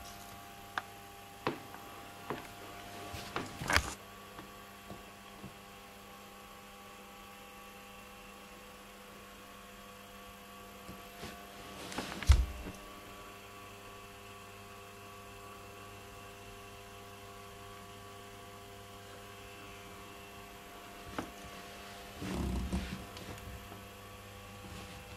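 Steady electrical hum from a powered-up Rock-Ola jukebox, with a few light knocks in the first few seconds, one louder thump about twelve seconds in, and a short burst of rustling near the end.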